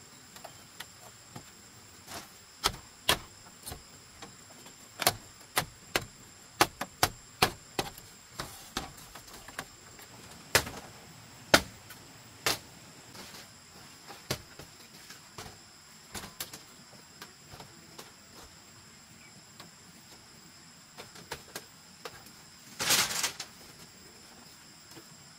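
Sharp wooden knocks on bamboo, coming in irregular runs of about two a second, as split-bamboo slats are fixed to a coop wall. Insects buzz steadily behind them. Near the end there is a noisy rush about a second long.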